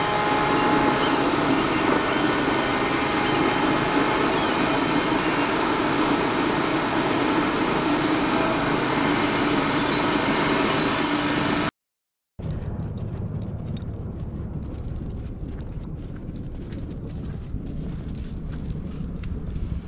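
A vehicle engine runs steadily with a few held tones over it. After a brief dropout about halfway through, a lower, duller rumble follows with some scattered clicks.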